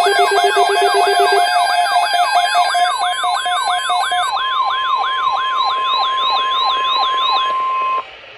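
Layered electronic alert tones: a siren-like sweep falling in pitch about three times a second over pulsing beeps that drop out one by one. A single steady alarm tone, typical of the NOAA Weather Radio warning alarm that comes before a broadcast alert message, holds alone near the end and then cuts off.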